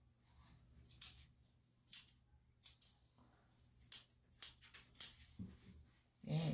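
Grooming scissors snipping the fur on a dog's paw: about half a dozen short, sharp snips, roughly half a second to a second apart.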